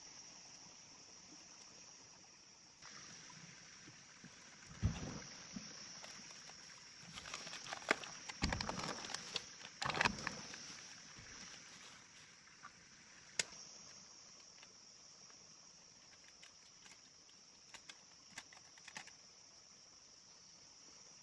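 Steady high-pitched insect chirring, likely crickets. From about three seconds to about twelve seconds in, there is a busy stretch of irregular knocks and rustling handling sounds, with a few sharp clicks later on.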